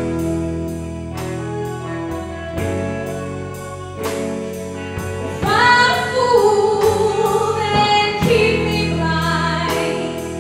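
A live band plays a song with a steady beat while a woman sings into a microphone, holding long, sliding notes from about halfway in.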